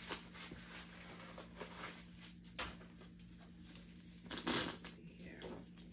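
Protective wrapping rustling and crinkling in irregular bursts as it is pulled off a handbag's handles, with a louder rustle about four and a half seconds in.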